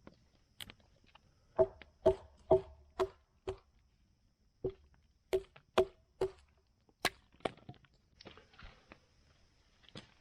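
Firewood being chopped: about a dozen sharp, ringing strikes on wood, coming in uneven runs of about two a second with short pauses between.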